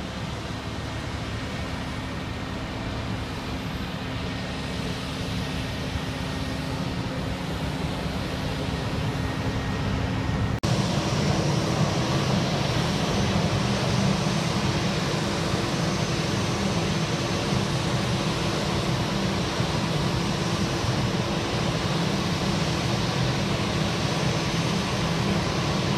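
Jet airliner's engines running as it taxis on the apron, a steady rumble and hiss with a faint whine, growing louder as it approaches, with a sudden step up in level about ten seconds in.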